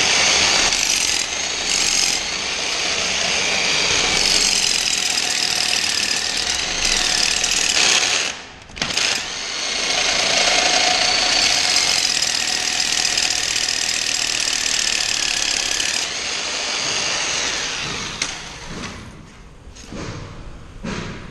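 A loud machine running steadily, cutting out briefly about eight seconds in, then dying away after about sixteen seconds, with a few knocks near the end.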